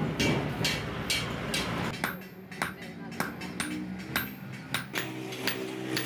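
Hammer blows on a hot steel knife blank on an anvil during hand forging, sharp metallic strikes at a steady rhythm of about two a second.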